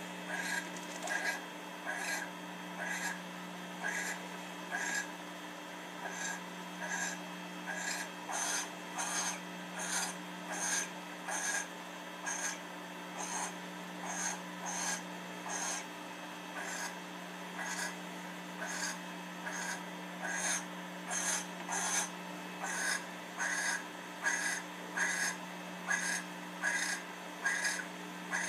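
Barn owl giving its rasping, hissing 'snore' call over and over, about once a second at first and a little faster later on: the food-begging call of an owl at the nest as a mouse is brought in.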